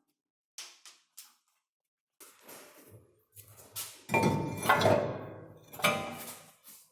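Screwdriver tapping at a wheel hub's metal dust cap to knock it off: a few light taps, then louder metallic clanks that ring on, about four seconds in and again near six seconds.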